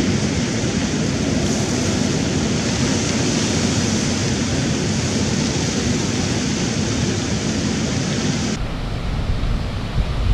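Ocean surf breaking and washing up a cobble beach, a steady roar of water. About eight and a half seconds in the sound changes abruptly to duller surf with wind rumbling on the microphone.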